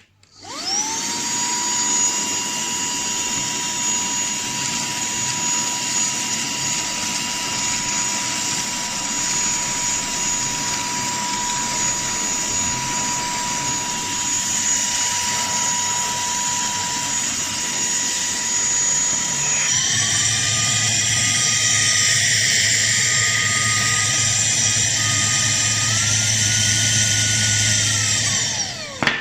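Cordless handheld vacuum cleaner's motor spinning up and running with a steady whine. About two-thirds through it steps up to a higher pitch, as when switched to the higher of its two speeds. It rises a little more shortly before it is switched off and winds down.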